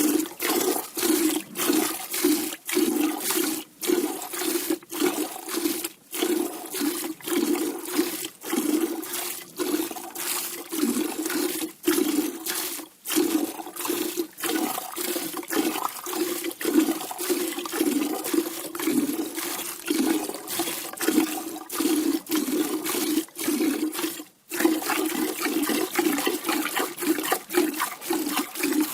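A cow being milked: streams of milk squirting into a pail in a steady, pulsing rhythm.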